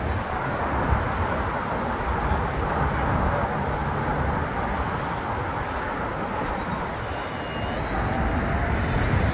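Steady traffic noise from a busy multi-lane road: a continuous hiss and rumble of passing cars.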